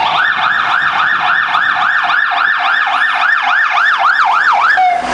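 Fire truck siren yelping, its pitch rising and falling about four times a second, then dropping to a short steady low tone just before the end.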